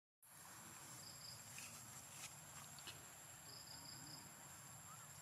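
Faint outdoor ambience with insects chirping in short high trills, twice, and a few faint clicks.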